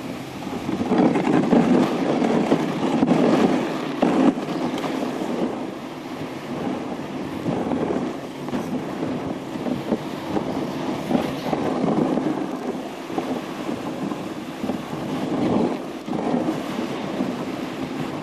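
Rumbling noise of a dog sled gliding over snow: the runners scraping along the trail, with wind buffeting the camcorder's microphone. It is loudest for the first few seconds, then eases and rises and falls.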